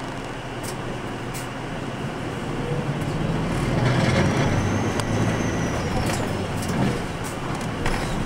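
Cabin sound of a 2006 Nissan Diesel Space Runner RA city bus under way: its diesel engine drones steadily and grows louder about three seconds in, with a faint whine rising and then falling above it.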